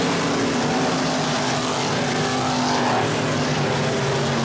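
A pack of IMCA Stock Cars racing, their V8 engines running together at speed in several overlapping engine notes at slightly different pitches.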